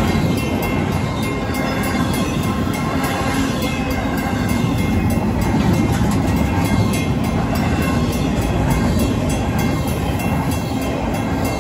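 Empty double-stack well cars rolling past, a continuous rumble of wheels on rail. A mechanical crossing bell (WCH second-generation) rings steadily over it.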